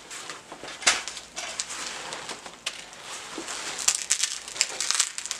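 Rustling and crackling as a padded carrying case is handled and worked open by hand, with a sharp click about a second in and a quick run of crackles near the end.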